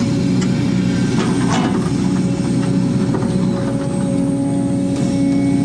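Case 250D excavator's diesel engine and hydraulics working under load as the bucket digs, heard from inside the cab: a steady engine drone with a constant whine over it, and a few knocks and scrapes as the bucket works through rocky soil.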